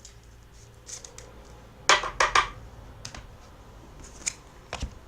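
Handling noise: a few sharp clicks and rustles, loudest as a quick cluster of three about two seconds in, with lighter single clicks after.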